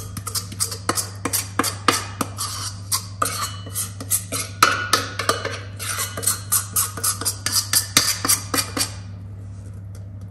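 Background music with a fast clicking percussive beat over a steady low drone; the clicking stops near the end.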